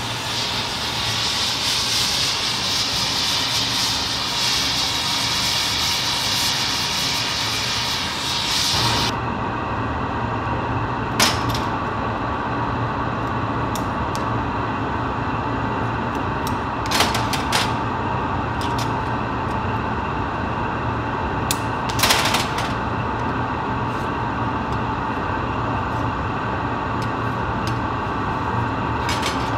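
Hand-held gas torch flame hissing on hot glass for about nine seconds, then cut off abruptly. A steady machine hum is left, with a few sharp clinks of metal glassworking tools.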